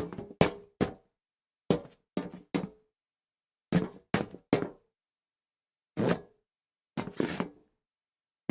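Feet shuffling and stepping on a metal plank: irregular scuffs and thuds in small groups of one to three, each with a brief metallic ring, separated by silences. A slightly longer scrape comes a little after seven seconds.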